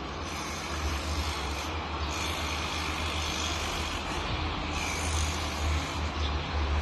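Steady low rumble of a girder transport-and-erection machine running as its front support leg travels into position on the pier.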